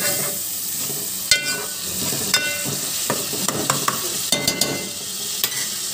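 Tomato-onion masala sizzling in a metal pot while a metal spoon stirs it. The spoon knocks and scrapes against the pot several times, each knock ringing briefly.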